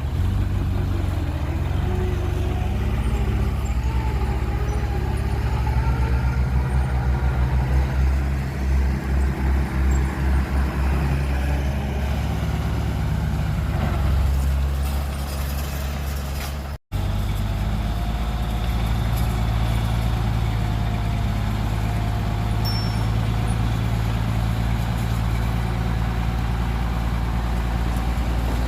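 Diesel engines of heavy earth-moving machinery (bulldozer and dump truck) running steadily. For a few seconds in the middle the drone pulses at about two to three beats a second. It drops out for an instant about two-thirds of the way through, then runs on steadily.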